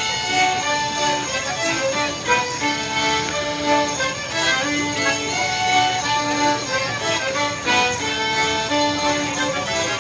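A live folk dance tune played on fiddles and a squeezebox, with the steady jingling of Morris dancers' leg bells over it.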